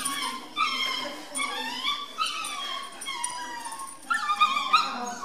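Shetland sheepdog yipping and whining in excited, high-pitched calls, roughly one a second, with a quicker run of them near the end.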